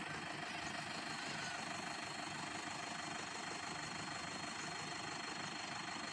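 Toyota Hilux D-4D diesel engine idling steadily while the pickup is stuck in deep mud.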